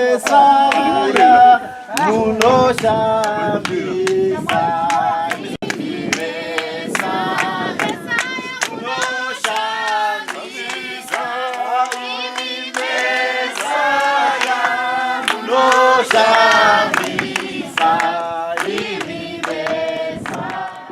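A group of voices singing together, with hand claps keeping a steady beat.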